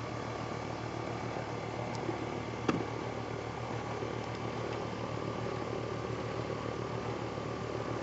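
R410A outdoor air-conditioning condenser running, a steady low hum of the compressor and condenser fan. A single light click about two and a half seconds in.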